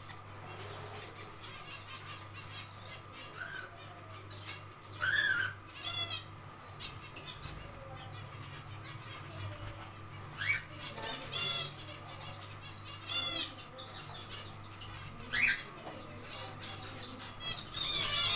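Zebra finches calling: short, high calls every few seconds, several overlapping near the end, over a steady low hum.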